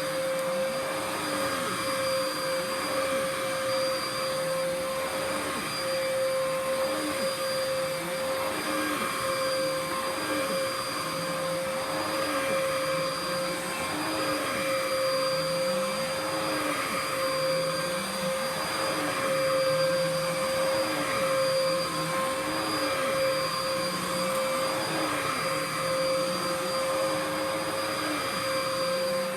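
Dirt Devil PowerMax Pet upright vacuum cleaner running steadily, with a constant motor whine and a lower hum that rises and falls in a repeating pattern every second or two.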